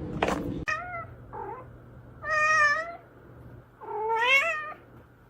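A cat meowing four times: two short meows, then a long level one, then a longer one that rises and falls in pitch.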